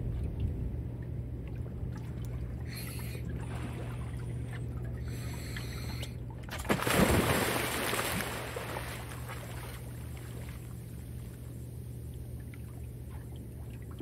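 A scuba diver plunging into the water about six and a half seconds in: a sudden splash and a rush of bubbles that dies away over a couple of seconds, heard over a steady low hum.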